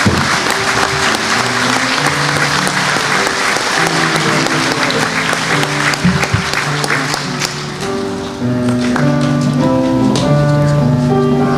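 Audience applauding over instrumental music with held, changing notes. The clapping dies away about eight seconds in and the music carries on.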